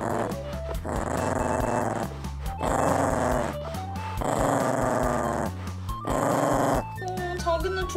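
Small dog growling in four drawn-out growls of about a second each, with short breaks between them, over background music. It is a warning growl of annoyance at being held and kissed.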